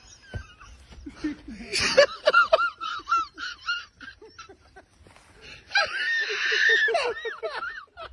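A person laughing hard and high-pitched in two bouts: a burst of short repeated cackles about two seconds in, then a longer shrieking laugh near the end.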